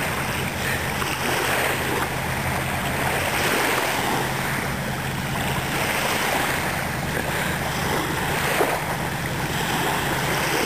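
Surf washing onto the beach, a steady wash that swells and ebbs every few seconds, with wind rumbling on the microphone.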